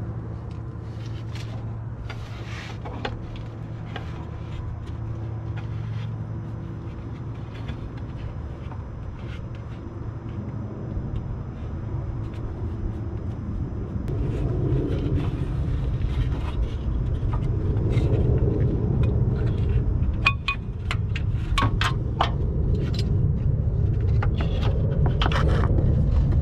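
Hand-tool work on a car's lower AC belt tensioner and belt: scattered metallic clicks and scrapes from the socket wrench and from the belt being pulled off its pulleys, coming thicker in the last few seconds. Under it runs a steady low rumble that grows louder about halfway through.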